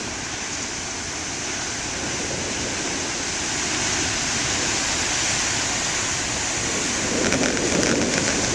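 Heavy ocean surf breaking on the shore: a steady wash of noise that swells about seven seconds in, with a few faint crackles near the end.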